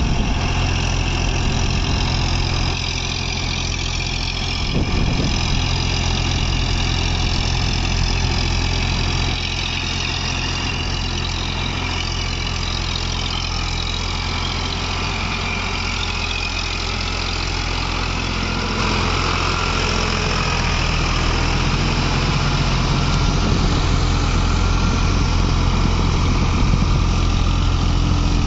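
Eicher 557 4WD tractor's three-cylinder diesel engine running steadily under load as the tractor works a flooded paddy field. The engine grows louder over the last third.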